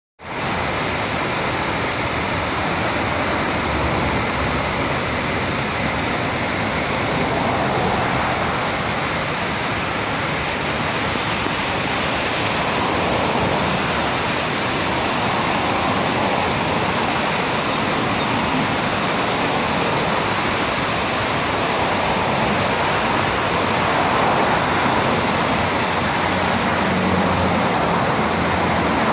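Steady rush of river water pouring over a long, low dam weir and churning white below it.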